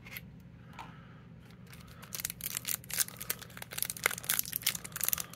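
Foil wrapper of a Pokémon Chilling Reign booster pack crinkling and tearing as it is pulled open by hand: a dense run of sharp crackles starting about two seconds in, after a few faint clicks.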